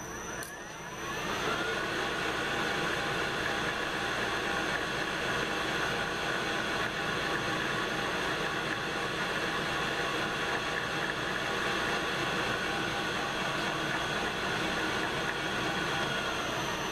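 Metal lathe spindle and drive motor spinning up about a second in, then running at a steady speed with a high whine, and beginning to wind down near the end.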